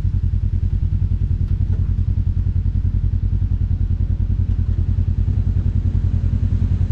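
Side-by-side utility vehicle's engine idling with the vehicle standing still: a steady low, evenly pulsing running sound.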